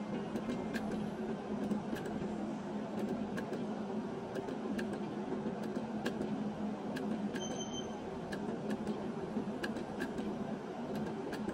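Video slot machine spinning its reels over and over: a steady low hum with frequent short clicks as the reels stop, and one brief beep about seven and a half seconds in.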